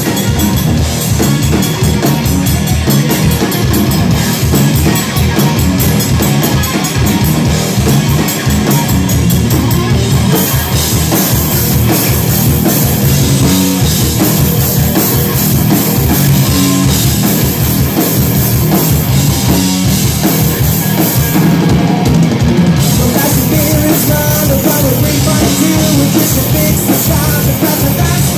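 A rock band playing loud, live: electric guitar, bass guitar and a drum kit keeping a steady driving beat.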